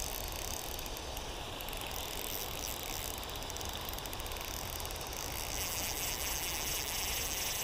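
Fishing reel's drag clicking in a rapid, continuous run as a hooked steelhead pulls line off the spool, over the steady hiss of creek water.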